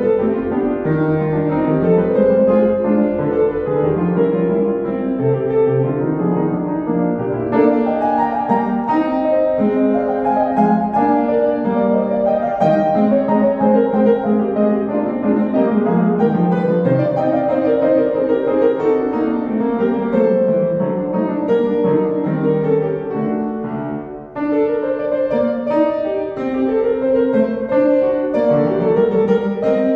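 Kawai upright piano played solo: a continuous classical piece of flowing runs that rise and fall, with a brief dip in loudness about three-quarters of the way through before the playing goes on.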